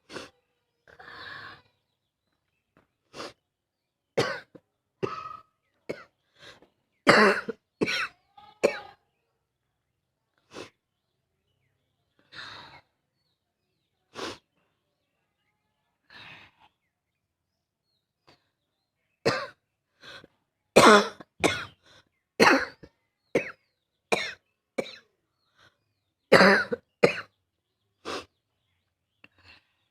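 A person's barking cough: single harsh coughs and bouts of several in quick succession, with breathy breaths drawn between them. The loudest bouts come about seven seconds in and again from about twenty seconds on.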